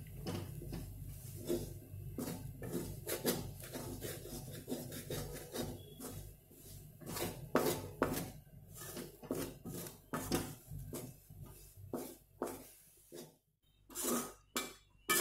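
Metal ladle scraping and knocking against a metal kadai in irregular strokes, stirring gram flour roasting in ghee. A low steady hum underneath stops near the end.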